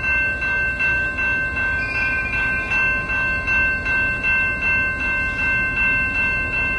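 Railroad grade-crossing warning bell ringing steadily, about two strokes a second, with the crossing gates down for an approaching train; a low rumble underneath.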